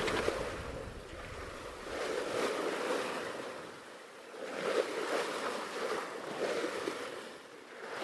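Open-ocean waves washing and rushing, swelling and easing every couple of seconds, with some wind.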